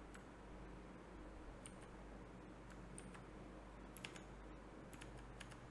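Near silence with a handful of faint, scattered mouse clicks.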